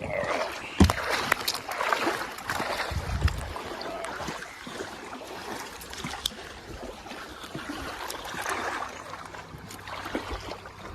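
Water sounds on a small boat: a steady wash of running, trickling water with scattered small clicks and a sharp knock about a second in.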